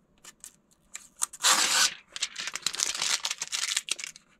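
Protective plastic film being peeled off a welding helmet's clear lens cover: a few light ticks, a loud rip about a second and a half in, then about two seconds of crackling, crinkling plastic.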